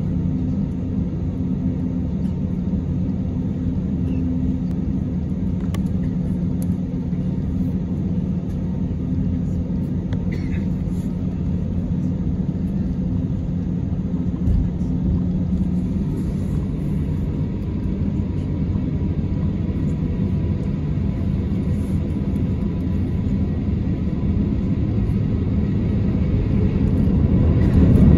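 Cabin noise inside an Airbus A350 on the ground: a steady low rumble and hum from its Rolls-Royce Trent XWB engines at low thrust. A faint whine rises slowly from about halfway through, and the rumble grows louder in the last couple of seconds as the engines spool up for the takeoff run.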